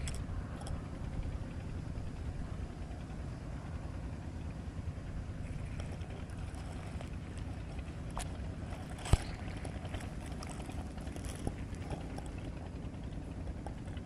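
Steady low rumble of wind on the microphone, with a few faint ticks and one sharp click about nine seconds in.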